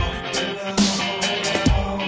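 Background music with a heavy electronic beat: kick drum and cymbal hits over sustained bass and guitar tones.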